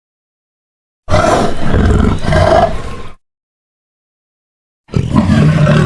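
Cartoon Allosaurus roar sound effect, played twice: a loud roar of about two seconds that swells and then fades, then after a dead-silent gap a second roar starting near the end.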